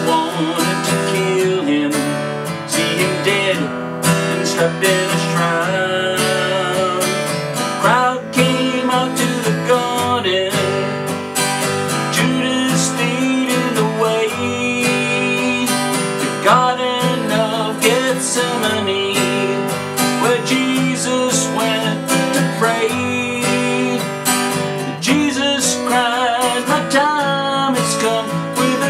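Acoustic guitar played solo: an instrumental passage of picked and strummed chords that runs on without a break.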